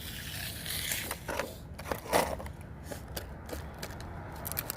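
Irregular metal clicks and rattles of hand tools and engine parts being handled, with a short scrape about a second in.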